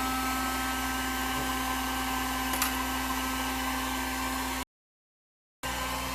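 Steady whir of a small electric blower motor with an airy hiss and a few constant tones, and one light click about two and a half seconds in. The sound cuts out completely for about a second near the end.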